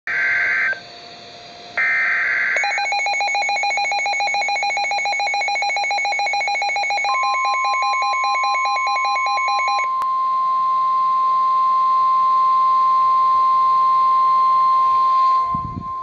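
Midland NOAA weather radio sounding a severe thunderstorm warning. Two short buzzy data bursts come first, then the radio's rapid, evenly pulsing alert beeps. From about seven seconds in, a single steady warning alarm tone joins them and carries on alone after the beeps stop, until it cuts off just before a brief thump near the end.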